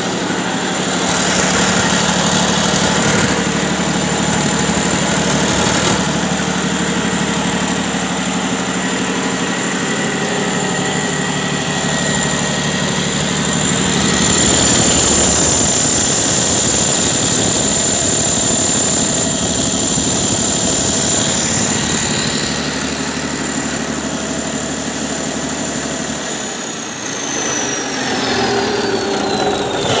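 Kirloskar XL90 diesel engine driving a 125 kVA generator alternator, running steadily with a constant high whine over its hum. In the last few seconds the whine falls steadily in pitch and the low engine hum thins out.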